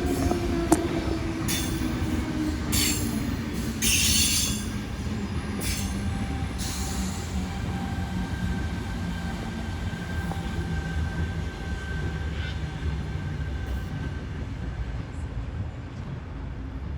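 Sydney Tangara electric train pulling in and slowing: a steady low rumble with a falling motor whine in the first few seconds, and several short high squeals and hisses in the first half as it brakes.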